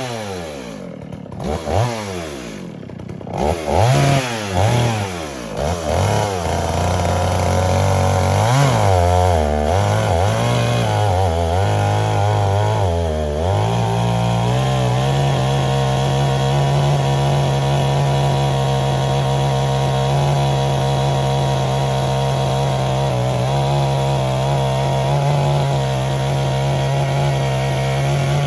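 Gasoline chainsaw cutting tree limbs: the engine revs up and down several times, then is held steady at high speed through the second half as it works through a cut.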